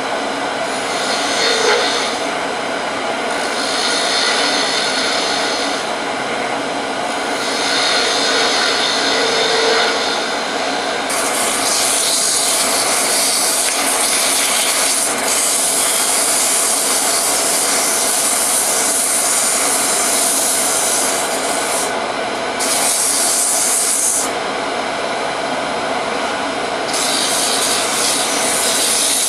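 Wood lathe running while a turning tool cuts into a spinning walnut handle blank. The cutting hiss comes and goes in short passes at first, then runs in long steady cuts from about a third of the way in.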